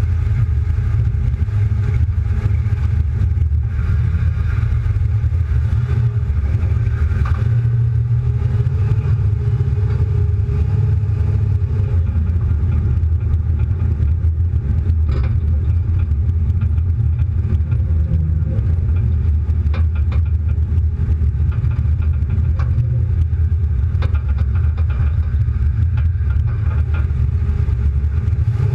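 Car engine running with a steady, loud low rumble while driving.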